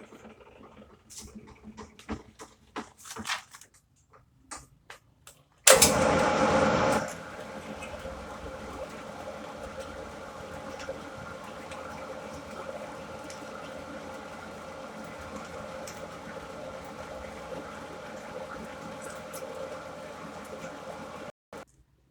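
A few light clicks and knocks, then an electric machine tool drilling the airgun chamber workpiece: it starts abruptly about six seconds in, loudest for the first second, then runs with a steady hum and cuts off suddenly near the end.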